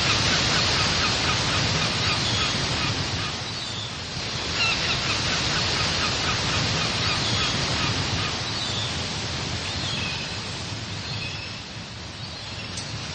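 Beach ambience: steady surf washing, with short bird calls repeated over it in small groups.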